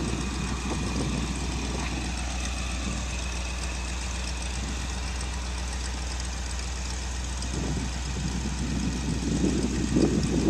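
Ford F750 grain truck's engine idling steadily, growing louder over the last few seconds.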